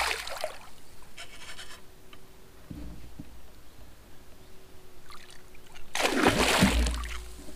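A hooked pike thrashing at the surface beside the boat, splashing water: a splash fading out at the start, and a longer, louder bout of splashing about six seconds in.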